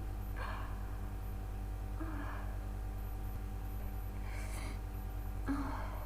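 A congested woman with a cold breathing and sniffing: four short breathy gasps about a second and a half apart, over a steady low hum.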